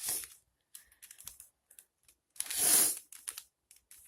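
3x3x3 mirror cube's plastic layers being turned by hand: irregular clusters of quick clicks and clacks, with one longer, louder rush of noise about two and a half seconds in.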